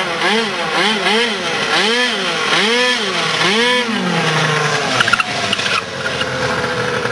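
Small motorbike engine revved up and down in repeated throttle blips while the bike is held in a wheelie; the blips come quickly at first, then about one a second. After about four seconds the engine runs at a steadier, lower pitch.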